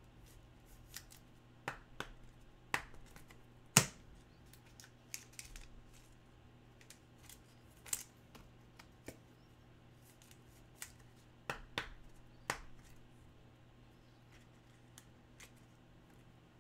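Trading cards and plastic card holders being handled, giving scattered sharp clicks and snaps at irregular intervals, the loudest about four seconds in, over a faint steady hum.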